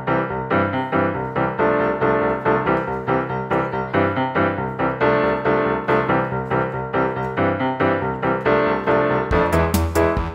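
Background music: a piano-like keyboard melody over a steady, even pulse. About nine seconds in, sharp percussion hits and a heavier bass come in.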